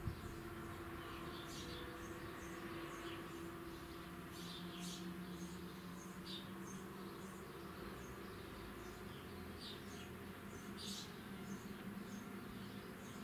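Small birds chirping in short, scattered calls, over a faint steady low hum.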